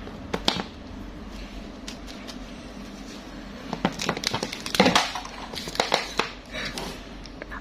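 Small plastic toys and candy being handled: scattered clicks, taps and short rustles, busiest and loudest about four to six seconds in.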